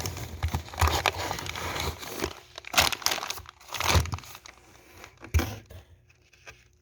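Plastic packaging crinkling and rustling as wrapped packs of meat are handled, with a few dull thumps as they are set down; it dies down near the end.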